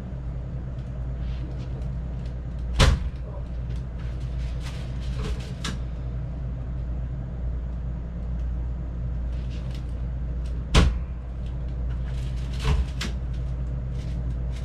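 A few short, sharp knocks during a chiropractic clavicle adjustment, about three seconds in, near eleven seconds (the loudest) and once more soon after, over a steady low hum.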